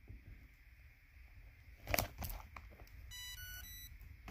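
Insulin pump alarm beeping: a cluster of high electronic tones that starts about three seconds in, going off because the paired Dexcom glucose monitor is acting up. A single sharp knock, a hand against the cardboard card box, comes about two seconds in.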